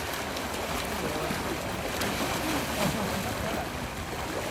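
Shallow seawater sloshing and splashing steadily, with wind noise over it.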